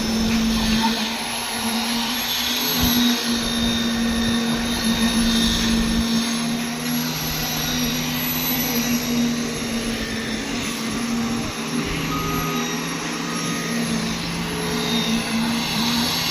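Heavy concrete road-paving machinery running steadily, a continuous engine hum with a faint high whine over it, and a second lower hum that comes and goes.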